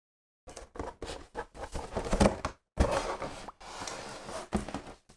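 A cardboard toy box being handled and turned over: rubbing and scraping of the cardboard, broken by several sharp knocks, starting about half a second in.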